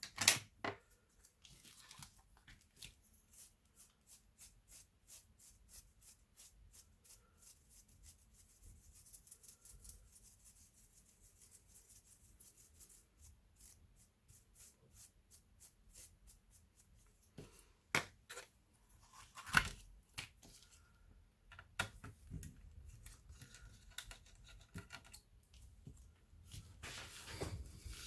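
Small ticks, clicks and scraping of hands and tools working on an Asus X54C notebook's plastic casing and parts. A few sharper snaps stand out, one at the start and two about two-thirds of the way through.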